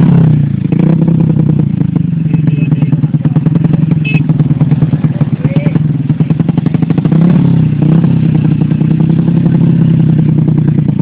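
Drag motorcycle engines running close by with rapid firing pulses, revving up and back down near the start and again about seven seconds in. Voices are heard over the engines.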